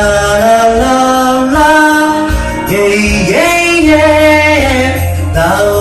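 A sung melody on wordless "lan-la-la" syllables, in held notes that step up and down, over pop-rock backing music with a steady bass.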